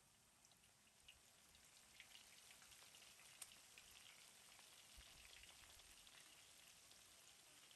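Faint sizzling and crackling of small cornstarch-coated nettle fish deep-frying in hot oil, building up about a second in and going on steadily with scattered small pops.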